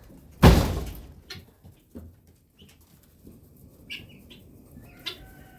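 A short burst of poultry wings flapping about half a second in, followed by a few faint, short bird calls.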